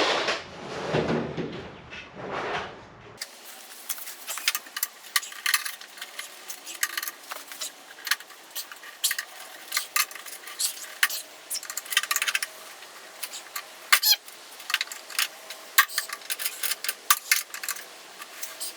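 Irregular clicking, clinking and scraping of hand tools against metal and plastic fastener clips, as the stubborn fender clips on a Range Rover Classic are worked loose.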